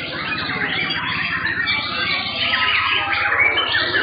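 Several white-rumped shamas (murai batu) singing at once, a dense overlapping mix of rapid whistles and chattering phrases.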